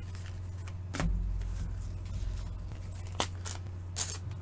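A few light clicks and taps of trading cards and plastic card sleeves being handled and set down on a table, over a steady low hum.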